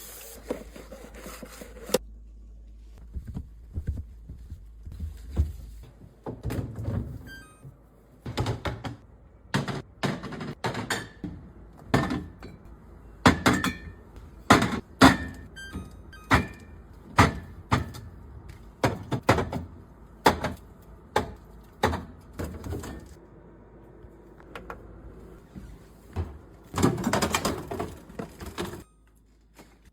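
Irregular knocks and clunks of items, containers and fridge fittings being handled and set down during fridge cleaning and restocking, sometimes several in quick succession, with a longer rustling or scraping stretch near the end.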